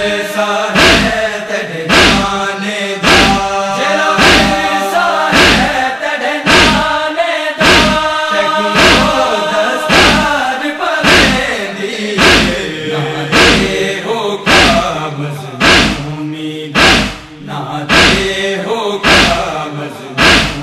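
Group of men chanting a noha lament in unison, kept in time by chest-beating (matam): a sharp slap about once a second under the singing.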